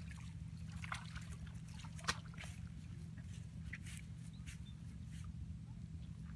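Hands working in shallow muddy water: scattered small splashes, sloshes and drips, with one sharp click a little over two seconds in, over a steady low rumble.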